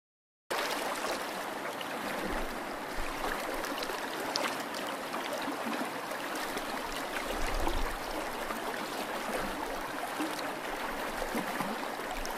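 Water trickling and running steadily with small drips and splashes, starting about half a second in.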